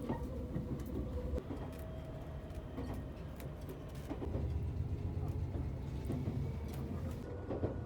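Moving train rumbling steadily, with faint whining tones and occasional light clicks.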